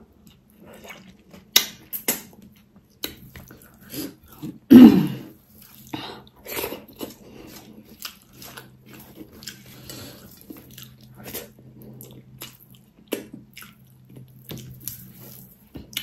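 Close-up mouth sounds of eating pork trotters by hand: chewing, biting and wet smacking in many short clicks, with one much louder thump about five seconds in. Near the middle and end, fingers scrape food together on a steel plate.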